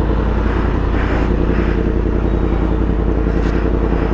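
Yamaha MT-10's crossplane inline-four engine idling steadily with the bike at a standstill, holding an even pitch.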